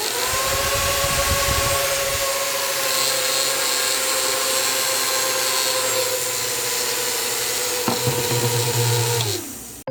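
Homemade mini fan driven by small DC motors spinning up with a rising whine, then running at a steady pitch with a rush of air. A click comes about eight seconds in, and the whine falls away near the end as the fan winds down.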